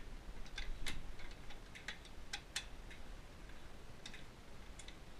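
A wrench working a bolt loose on a tractor's step mounting: a few sharp metallic clicks at irregular intervals, some in quick pairs.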